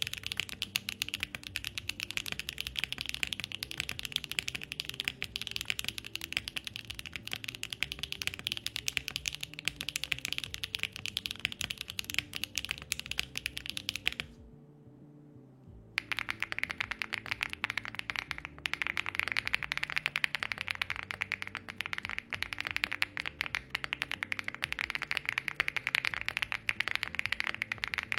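Fast, continuous typing on a mechanical keyboard fitted with HMX Akko Cilantro tactile switches, a sharp, dry and fairly loud clack. About halfway it stops for a couple of seconds, then goes on from the no-foam aluminium-plate build to a full-foam build with an FR4 plate and PBT keycaps.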